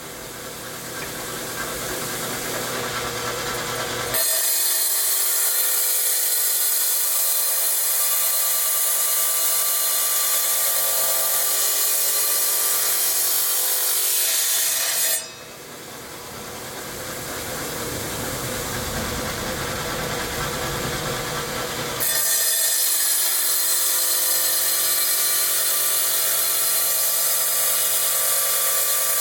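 Felker Tile Master tile saw running, its diamond blade grinding through rock. The sound switches abruptly between a lower grind that builds up and a steady bright hiss: it changes about four seconds in, drops and builds again about fifteen seconds in, and returns to the steady hiss about twenty-two seconds in.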